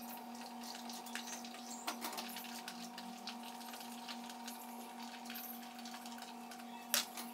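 Pieces of food tipped from a plastic container into a pot of hot water: faint scattered clicks and patter, with a sharper knock about two seconds in and another near the end, over a steady faint hum.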